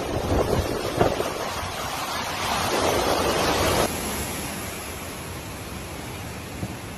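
Hurricane wind buffeting the microphone over rushing, churning floodwater, in gusty surges. About four seconds in it cuts abruptly to a quieter, steady wind hiss.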